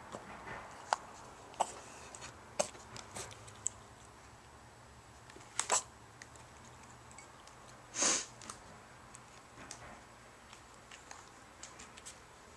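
A pet sniffing at water in a glass, with scattered small clicks, then sneezing: a quick double burst about halfway through, and the longest and loudest sneeze about eight seconds in.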